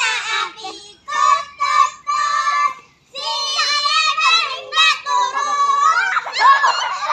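A group of children singing a game song together in held phrases with short breaks, turning into excited shouting and laughter about six seconds in.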